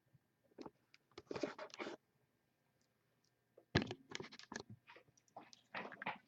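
Scratching, crinkling handling noise with small clicks, in two spells, the second longer: the sealed trading-card box being handled and opened.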